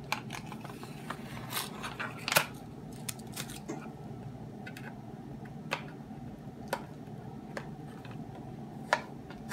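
Small cardboard playing-card box and paper being handled and picked at by fingers: scattered light clicks and crinkles, over a steady low hum.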